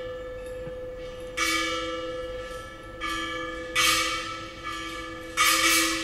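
Metal percussion struck about five times, most loudly around one and a half, four and five and a half seconds in, each strike ringing out bell-like with a bright shimmer and dying away. Beneath the strikes runs a steady drone of two held notes.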